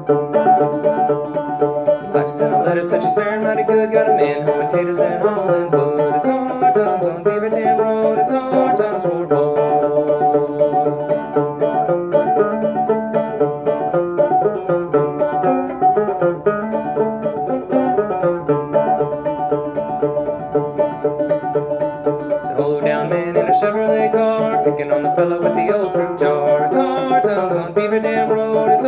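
A c.1891 A.C. Fairbanks "Fairbanks and Cole" open-back banjo playing an unaccompanied old-time instrumental tune, plucked with the bare right hand.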